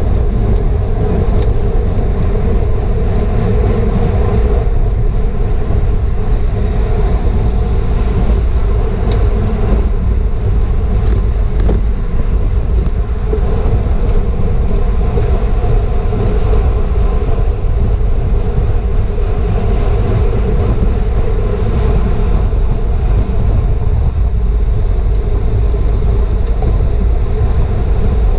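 Steady wind rush buffeting an action-camera microphone on a racing bicycle at speed, with the hum of tyres on pavement under it and a few light ticks near the middle.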